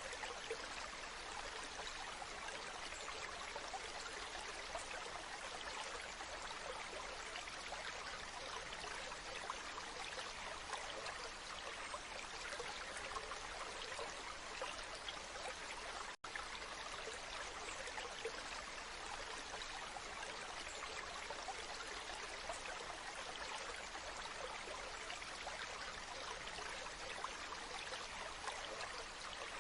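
Waterfall: steady, even sound of falling and splashing water, with a split-second dropout about halfway through.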